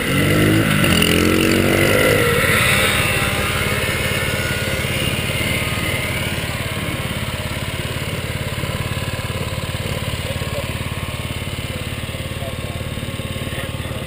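Small motor scooter engine revving up as it pulls away, its pitch rising over the first few seconds, then running steadily while riding.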